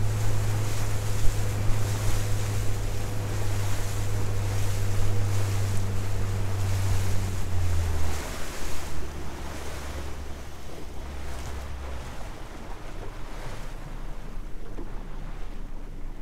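Suzuki 140 four-stroke outboard running with the boat under way, with water rushing past the hull and wind on the microphone. The engine note steps down about eight seconds in and drops away about twelve seconds in, and the wind and water noise fades with it.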